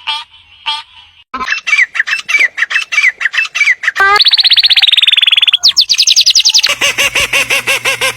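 Bird calls in several clips cut together: a few short calls about half a second apart, then fast strings of repeated notes, including a quick trill of falling notes about four seconds in, each clip ending abruptly where the next begins.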